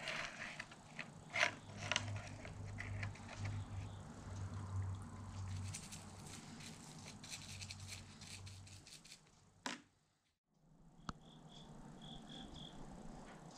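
Small steel ratchet parts being scrubbed with a brush in a plastic can of degreaser: scratchy scraping with many small clicks of metal against plastic, over a steady low hum. It stops short near the end.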